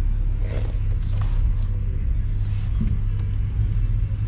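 A vehicle engine running with a steady low rumble, with a few brief rustling noises over it.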